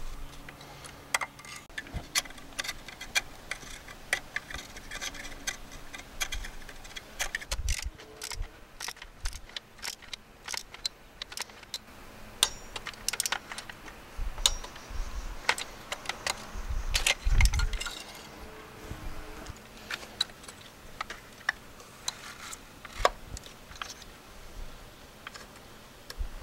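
Hand tools and metal parts clinking and clicking irregularly during spark plug and ignition coil work, with a louder dull knock about seventeen seconds in.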